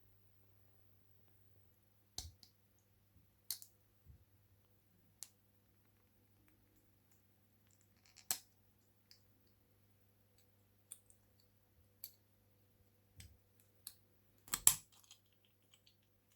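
Scattered light clicks and clinks of small metal parts being handled and set down, about a dozen at irregular intervals, the loudest near the end, over a faint steady low hum.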